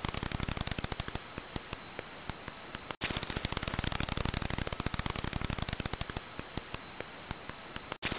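Long-eared bat echolocation calls, brought down from ultrasound to audible range: a fast, dense train of clicks that thins after about a second to a slower run of about five clicks a second. It breaks off briefly about three seconds in, then starts the same pattern over.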